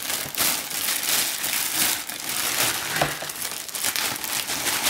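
Clear plastic bag around a new furnace blower motor crinkling and rustling as the motor is handled and unwrapped, an irregular crackle that keeps going.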